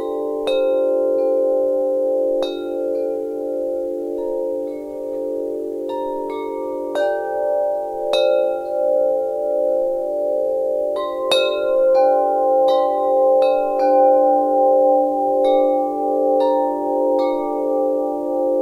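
Wind chimes ringing: strikes come at irregular moments, more thickly in the second half. Several low tones ring on and overlap, pulsing as they beat against one another.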